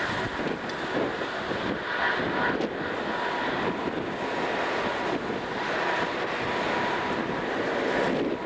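Incat 045 wave-piercing catamaran ferry under way close by: a steady rushing drone of its engines and wash with a faint steady whine, and wind buffeting the microphone.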